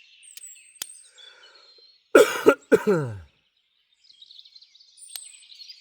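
A man coughs and clears his throat: two loud bursts a couple of seconds in, the second dropping in pitch. A few sharp clicks come before and after, with faint bird chirps behind.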